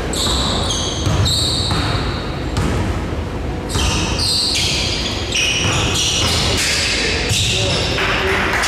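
Basketball play on an indoor court: a ball bouncing on the floor with repeated thuds, and many short high-pitched squeaks from sneakers on the court surface.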